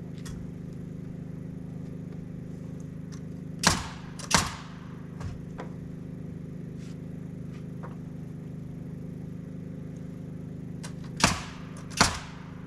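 Four sharp knocks in two pairs, each pair about a second apart, over a steady low hum: typical of hammer blows on timber framing.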